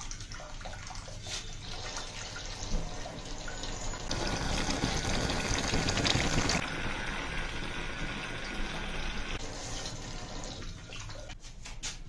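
Small battery-powered pump running in a glass dish of water, its thin jet splashing and trickling back into the dish, louder for a couple of seconds in the middle.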